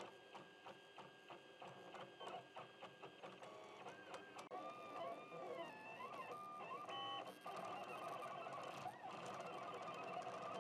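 Faint FDM 3D printer running a print. Its stepper motors whine in tones that jump from pitch to pitch, with pitches gliding up and down in arcs as the print head traces ring outlines, and occasional small ticks.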